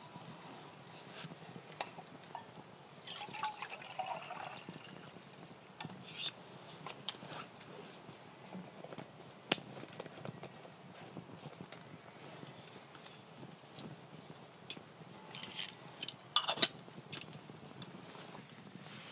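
Rain dripping from the tree canopy: scattered, irregular drips and taps over a soft patter, with a louder cluster of drops about sixteen seconds in.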